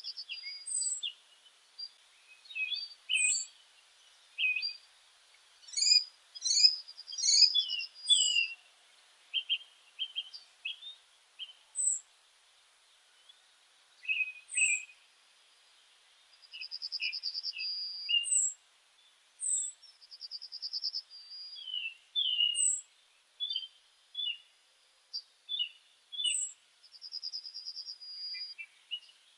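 Songbirds chirping: short sharp chirps, a few rapid buzzy trills, and a high down-slurred note repeated every few seconds, against a very quiet background.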